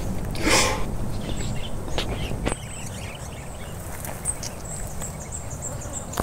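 Small birds chirping in the background, with a short burst of noise about half a second in and two faint clicks around two seconds in.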